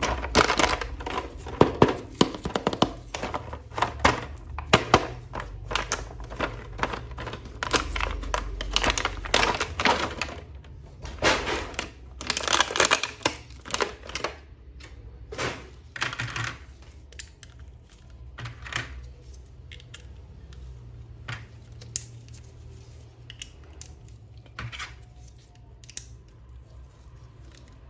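Plastic packaging crinkling and tearing, with irregular clicks and taps of hard plastic toy parts being handled. The activity is busiest in the first half and thins out to occasional clicks later.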